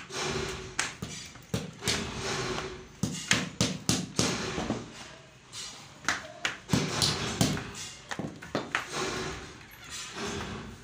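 Irregular taps, knocks and soft thuds, at times several a second: foam rubber flip-flop soles being handled and stacked.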